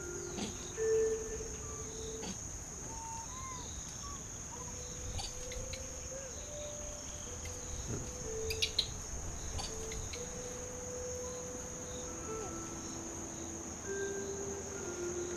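A steady high-pitched chorus of insects such as crickets or cicadas, with a few short sharp clicks about eight and a half seconds in.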